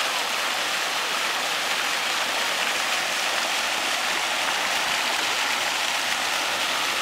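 Splash-pad fountains running: water pouring from an umbrella fountain and spurting from ground jets into shallow pool water, a steady hiss.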